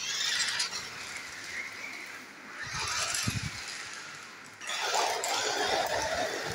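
Battery-powered double-roll RC stunt car's electric drive motors running as it drives and spins on a hard floor, surging louder about halfway through and again near the end.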